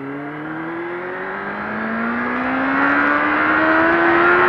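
Suzuki GSX-R 750 streetfighter's inline-four engine pulling steadily under acceleration in one gear, its pitch rising slowly and its level growing, with wind noise around it.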